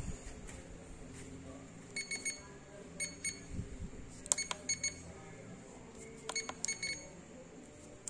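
Handheld motorcycle diagnostic scanner beeping as its keys are pressed: short high electronic beeps, mostly in pairs, each with a small click, over a low steady background.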